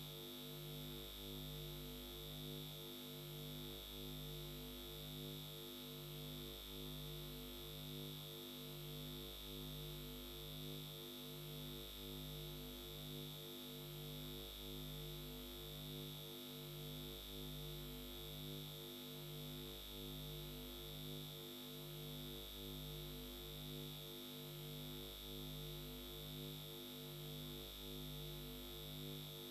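Faint electronic tones with no speech: a low buzzy tone pulsing evenly a little more than once a second over a constant high whine.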